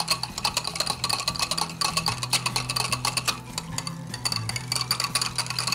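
A utensil beating ghee and water in a ceramic bowl, clicking rapidly and steadily against the bowl as it mixes, each tap ringing faintly. The mixture is being beaten until it turns fluffy and paste-like.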